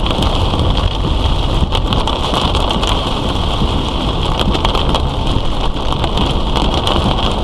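Heavy monsoon rain pelting a moving vehicle, a dense steady patter of drops over continuous road and tyre noise.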